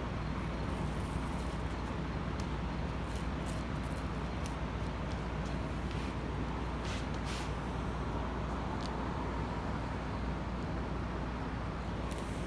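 Steady low background rumble with a few faint, short crackles.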